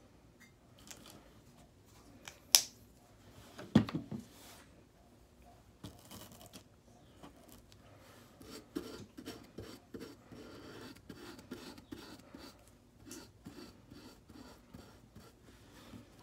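A sharp click about two and a half seconds in and a knock a second later, then a paintbrush scratching and rubbing over an unpainted wooden frame as paint is brushed on, in many small strokes.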